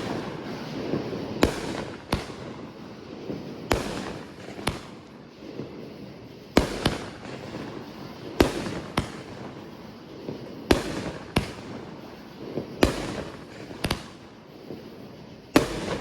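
Aerial fireworks bursting: a sharp boom every second or so, some in quick pairs, with crackling between the bangs.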